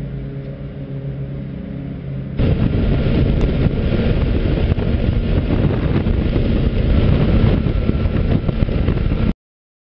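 Motorcycle engine idling steadily. After a sudden cut, the motorcycle is at motorway speed: loud wind rush on the handlebar-mounted microphone mixed with engine and road noise, which stops dead near the end.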